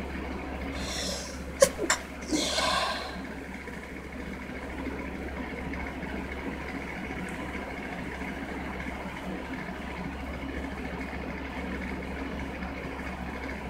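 A single unstifled sneeze about a second in: a sharp breath in, two quick catches, then the burst of the sneeze.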